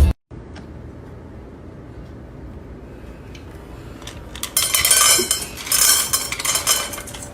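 Low steady background noise, then from about four and a half seconds in a rapid clattering and clinking of tableware, loudest in two bursts.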